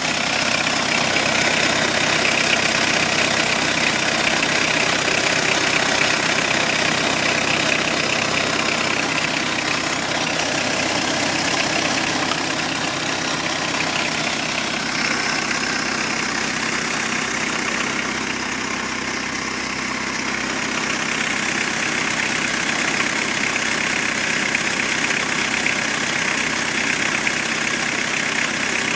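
Fiat Scudo's 1.9-litre turbodiesel engine idling steadily, with the rapid, even knock of diesel combustion.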